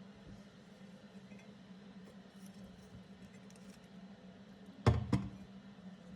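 Two short, sharp knocks in quick succession about five seconds in, over a faint steady low hum.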